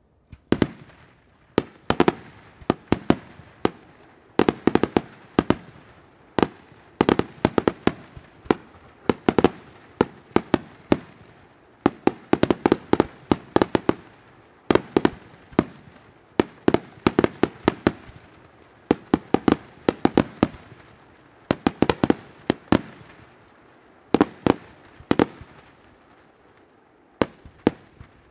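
Aerial firework shells bursting in a long, irregular series of loud bangs, often several in quick succession, each with a short echo; the bangs come further apart near the end.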